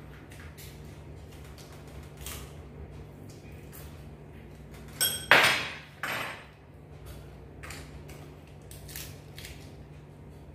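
Scattered clicks and clatter of dishes, utensils and crab shells being handled while eating. A louder cluster of knocks comes a little past halfway, over a steady low hum.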